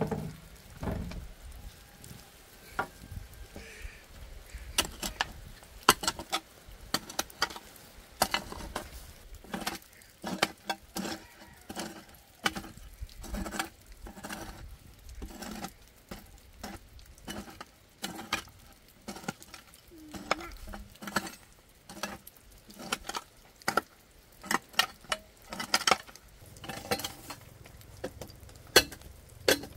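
Irregular run of sharp clicks and knocks from hard objects being handled and struck, some in quick clusters.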